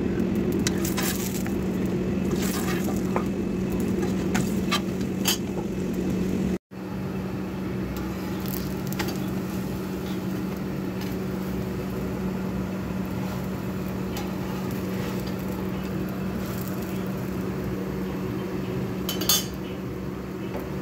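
Kitchen utensils and pots clinking and knocking several times in the first few seconds, over a steady low hum. The sound drops out briefly, then the hum runs on, with one more clink near the end.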